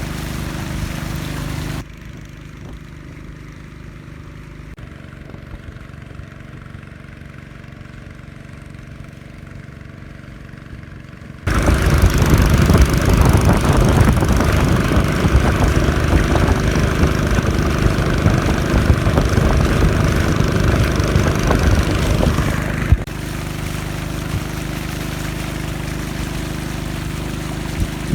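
Small boat motor running steadily at an even pace. It gets louder and rougher for about ten seconds in the middle, then drops back to a lower, steadier running sound.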